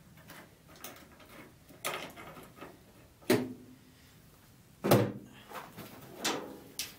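A series of separate sharp knocks and clunks from a Triumph Spitfire's trunk lid and hinge being worked loose by hand. The two loudest come about a second and a half apart near the middle.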